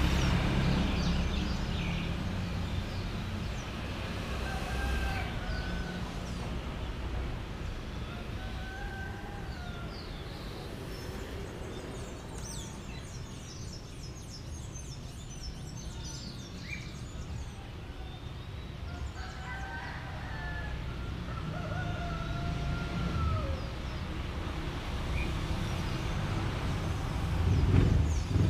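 Roosters crowing several times, each crow about a second long, with small birds chirping high over a low traffic rumble that swells again near the end.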